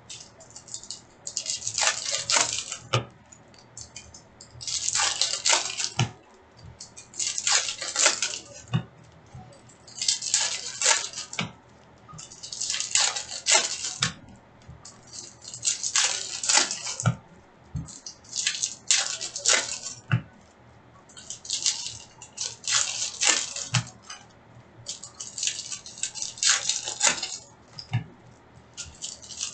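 Plastic wrappers of hockey card packs crinkling as they are torn open, in repeated bursts about a second long every two to three seconds, with light clicks of card handling between.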